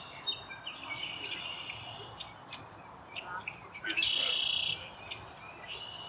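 Birds calling: a few short, high whistled notes in the first second or so, then a buzzy, harsh note lasting under a second about four seconds in.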